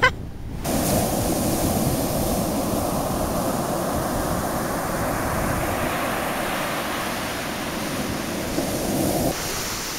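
Ocean surf breaking and washing up a sandy beach, a steady rush with wind buffeting the microphone. The sound drops out briefly about half a second in.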